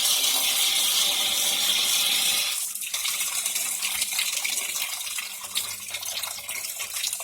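Water draining out of a portable twin tub washing machine into a bathtub, a steady gushing that eases off about two and a half seconds in and goes on as a broken trickle and splash.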